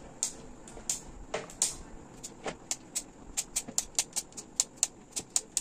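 Dark compound chocolate being chopped with a manual vegetable-cutter chopper: sharp chopping clicks, spaced at first and then quickening to about four or five a second about halfway through.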